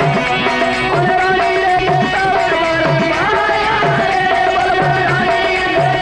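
Rajasthani folk music accompanying a sung Marwari katha: a hand drum keeps a steady beat under a melody line with sliding, bending notes.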